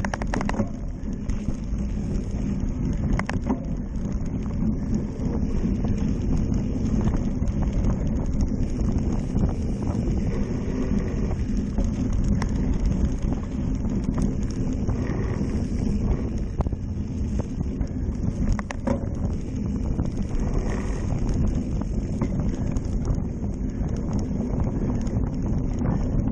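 Wind buffeting a handlebar-mounted camera on a cyclocross bike, over the steady rumble and rattle of knobby tyres rolling on rough dirt. A few sharp knocks from bumps come through, about 3 s in and again near 19 s.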